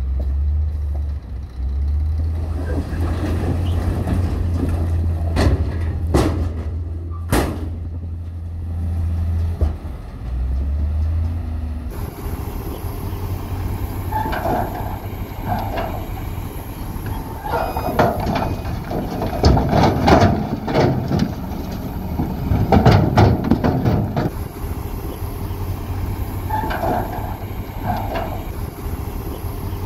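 Heavy construction machinery at work: a deep engine drone with a few sharp knocks. About halfway through it changes abruptly to another engine sound with repeated bursts of metallic clanking.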